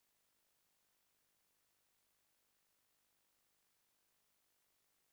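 Near silence: only a faint, steady hiss, with no sound from the animals.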